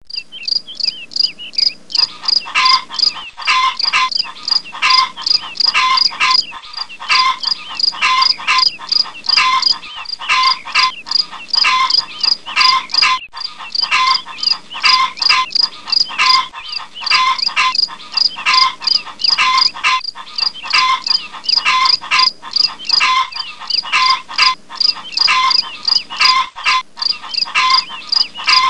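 A dense chorus of frog and insect calls, pulsing regularly about twice a second, with the lower calls joining in about two seconds in.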